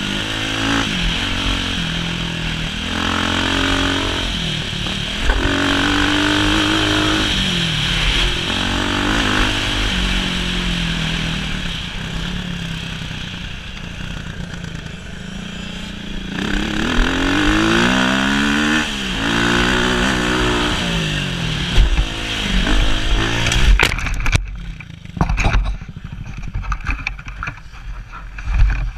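Motocross dirt bike engine revving up and falling back again and again as the rider works the throttle along the track. Near the end come a few clattering knocks as the bike goes down in a fall, and the engine note stops, leaving scuffing and wind noise.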